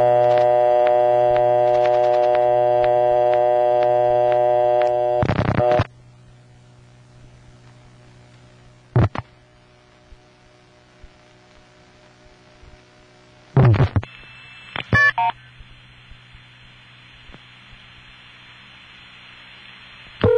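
Old step-by-step telephone line: a buzzy dial tone holds for about six seconds and breaks off at the clicks of dialing, with single dial clicks a few seconds apart. About fourteen seconds in, switching clicks are followed by a few brief multifrequency signalling tones as the 411 call is passed to a distant TSPS, then a steady hiss of carrier noise on the long-distance trunk.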